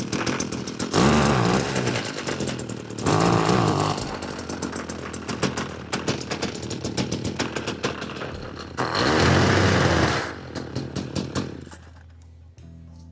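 Stihl HT56 pole saw's small two-stroke engine running: it idles with a fast, even firing beat and is revved up three times, briefly, about a second in, around three seconds in and again near nine seconds in. It drops away near the end.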